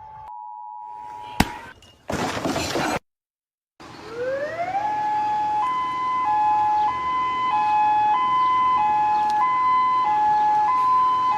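A steady tone ends with a click, followed by a burst of static and a brief dead gap. Then an electronic siren winds up in pitch and settles into a two-tone hi-lo pattern, switching between two pitches about every half-second.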